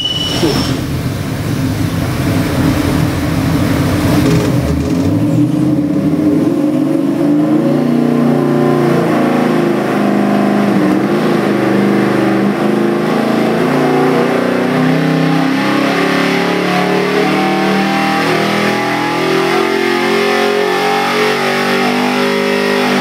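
Ford 347 stroker small-block V8, a carbureted 400 hp build, running a dyno sweep pull on an engine dynamometer. Its pitch climbs steadily up the rev range to nearly 6,000 rpm.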